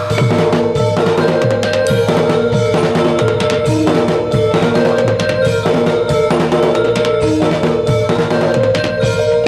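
Instrumental music: drums keep a steady beat under held melodic tones, with no singing.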